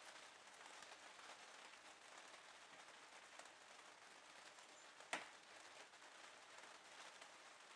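Near silence: faint hiss with scattered soft ticks from a blue tit pecking at a millet spray, and one sharp click about five seconds in.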